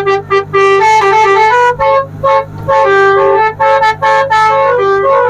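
A tourist boat's 'telolet basuri' musical horn playing a fast tune of reedy, flute-like notes, over a steady low hum.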